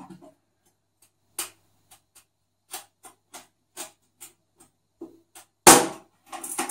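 Light, irregular taps and clicks of a hand tool on a toilet cistern, about two a second, then one much harder knock near the end as a piece is worked loose.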